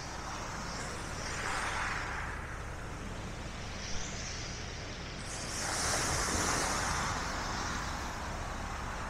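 Sea waves washing onto the shore twice, each one swelling and fading, the second louder and hissier. Under them runs a steady low rumble of wind on the microphone.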